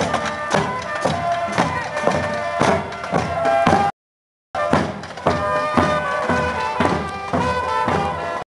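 Marching band playing: bass drums and cymbals beating about twice a second under bell-front brass horns playing a tune. The sound cuts out completely for about half a second near the middle and again just before the end.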